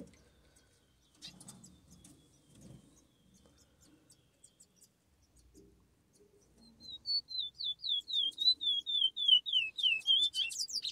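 A fledgling songbird's begging calls while it is hand-fed: a rapid run of high, short chirps, about four a second, starting about seven seconds in and slowly falling in pitch. Before that, only faint handling sounds.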